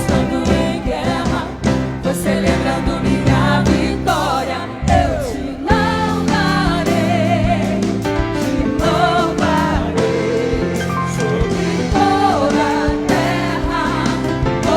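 A worship band and singers performing a Portuguese-language gospel song: sung lines with vibrato over sustained chords and a steady drum beat.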